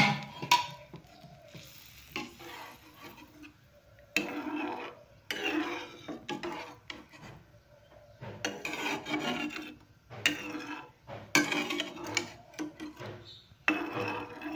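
A spatula stirring a thin curry broth in a kadai, scraping and rubbing along the bottom of the pan. The stirring comes in strokes about a second long with short gaps between them, after a sharp knock right at the start.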